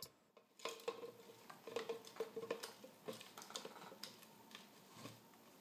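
Faint handling noise: light, irregular clicks and taps of hands fitting a phone and a small speaker into a PVC pipe.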